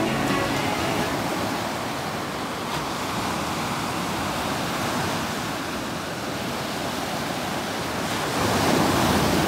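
Small waves breaking and washing up a sandy beach, a steady surf hiss that swells louder near the end as a wave rolls in.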